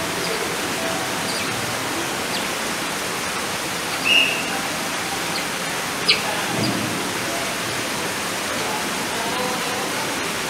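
Steady rushing of running water, with one short high chirp about four seconds in and a sharp click about two seconds later.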